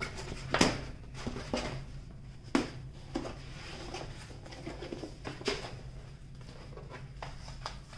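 A large rolled diamond-painting canvas with its paper backing is flipped over and smoothed flat by hand, rustling and crinkling, with sharper crackles about half a second in and again near two and a half seconds.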